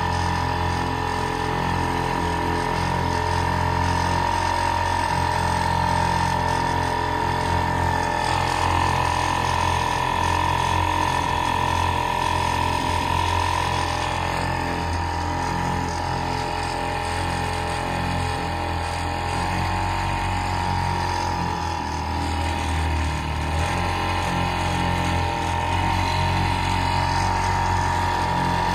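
1948 Evinrude Sportsman 1.5 hp two-stroke outboard motor running steadily under way, a constant buzzing whine over a low rumble.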